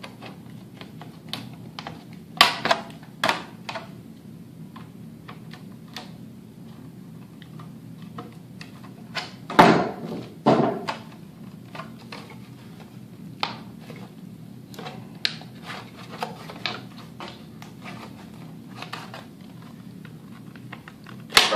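Aviation snips cutting the edge of a thin vacuum-formed plastic armor shin: an irregular run of crisp cuts and clicks, with a few louder snaps and plastic rattling as the piece is handled, the loudest about ten seconds in. A steady low hum lies underneath.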